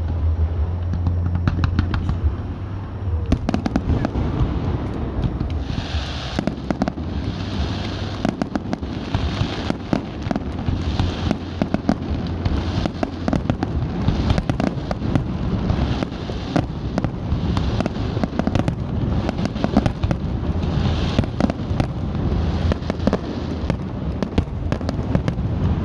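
Fireworks display: a dense, continuous run of bangs and crackling, with a rushing hiss returning every second or two.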